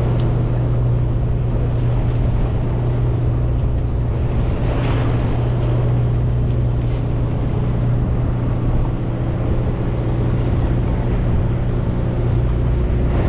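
Boat engine running steadily, a constant low hum with no change in pitch or level.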